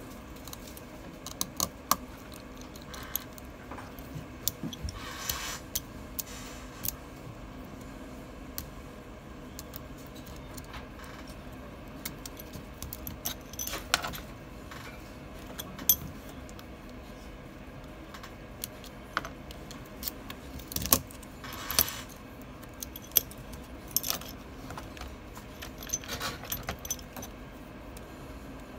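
Small metal repair tools clicking and clinking against a smartphone's opened housing and the work mat: scattered light taps and scrapes as the phone's screws are worked out, with a few short clusters of louder clinks.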